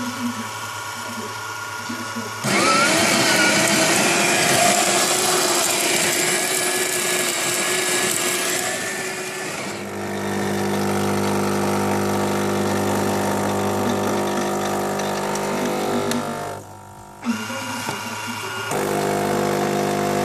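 Krups XP7240 bean-to-cup espresso machine brewing a coffee: the built-in grinder runs for about seven seconds, then the vibration pump hums steadily as it pushes water through the brew unit, with a brief break in the pump about two-thirds of the way in.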